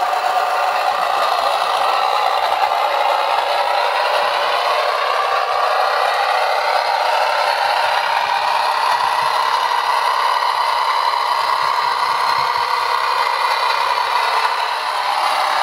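Digital sound of a Class 101 diesel multiple unit's engines, played through a model train's small on-board speaker, running steadily with the engine note slowly shifting in pitch. Clatter from the model running on the track sits under it.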